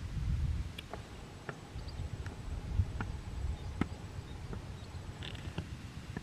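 Outdoor waterside ambience: a low rumble of wind on the microphone, scattered faint sharp clicks, and a thin, steady high-pitched insect drone.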